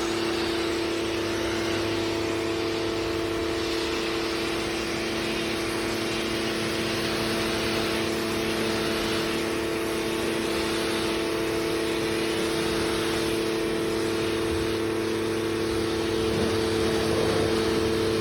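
DGIVOVO electric pressure washer running: a steady motor-and-pump whine over the hiss of the water spray.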